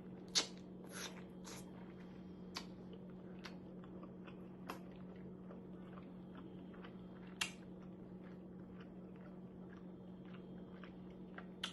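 Someone chewing a mouthful of hot teriyaki chicken with wet mouth clicks and smacks, the sharpest about half a second in and again about seven seconds in, over a steady low hum.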